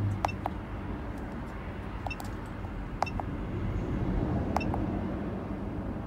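Keypad of a Nexas NexLink NL102P handheld truck diagnostic scanner giving short click-beeps as its buttons are pressed to step through the menus. There are several presses, some in quick pairs, over a steady low background rumble.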